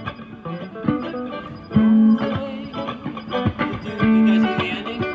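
Background music: guitar playing, with plucked notes and a few held low notes.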